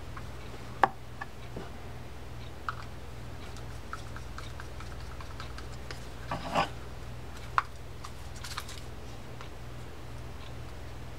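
Small clicks and taps of metal parts as a D.A.M. Quick spinning reel's case screws are worked in with a screwdriver. The sharpest click comes about a second in, with a brief scrape of handling just past halfway, over a steady low hum.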